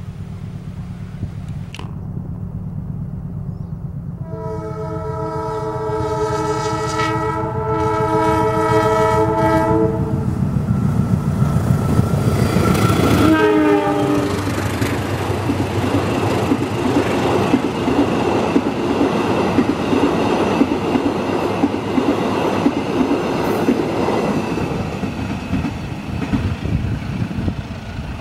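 Diesel locomotive hauling a rake of new INKA stainless-steel economy coaches approaches, its engine rumbling, and sounds a multi-note horn for about six seconds. A few seconds later a short horn note drops in pitch as the locomotive passes, and the coaches then roll by with a steady rush of wheels on rail and clickety-clack.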